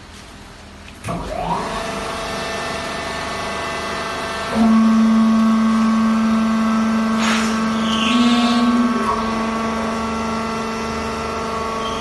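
Vertical hydraulic baler's power unit starting about a second in, its electric motor and hydraulic pump spinning up to a steady hum. About four and a half seconds in a louder, steady pump whine joins and holds until about nine seconds, with a single knock in between.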